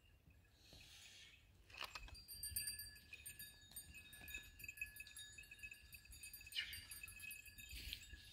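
Faint, continual tinkling of bells on a grazing flock of sheep and goats: several bells ringing and overlapping, with a few sharper clinks.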